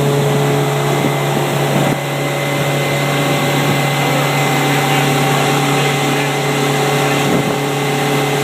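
Boat motor running steadily at a constant pitch, over rushing noise.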